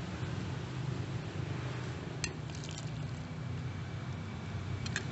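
Metal ladle clinking sharply against a bowl and the rim of a steel pot, a few strikes just past midway and again near the end, with liquid sounds as mashed krill is ladled into simmering broth over a steady low hum.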